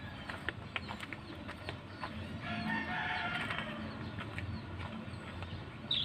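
A distant rooster crowing once, about two and a half seconds in and lasting about a second, over scattered light clicks and taps.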